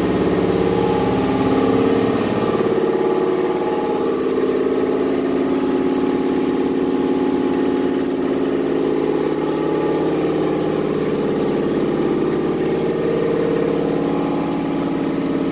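A Pontiac 400 V8 with a flat-tappet camshaft, running steadily at idle on an engine run stand.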